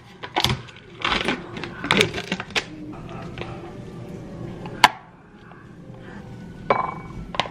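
A metal spoon scooping thick Greek yogurt out of a plastic tub, clicking and scraping against the plastic. There is a quick run of knocks in the first couple of seconds, a single sharp tap about five seconds in, and two more knocks near the end.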